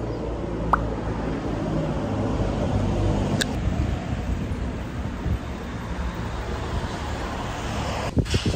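Road traffic on a city street: the steady low rumble of passing vehicles, swelling about three seconds in and then easing off, with a couple of small clicks.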